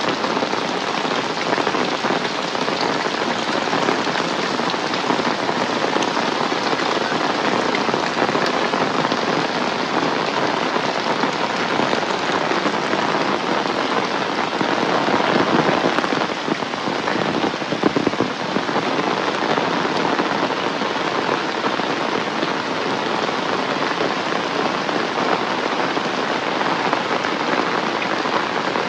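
Heavy rain pouring steadily, a dense, even hiss of drops that swells slightly for a few seconds a little past the middle.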